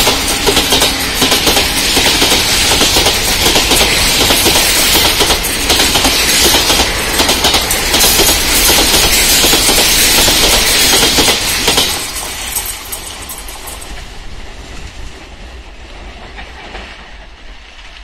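Passenger train coaches running past close by, steel wheels clattering over the rail joints in a fast clickety-clack. About twelve seconds in the last coach goes by, and the sound drops sharply and fades away down the line.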